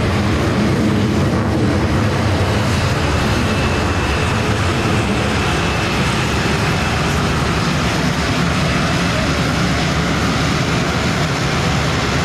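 Alenia C-27J Spartan twin-turboprop transport taxiing past, its two turboprop engines and six-bladed propellers running steadily, with a faint high whine in the middle.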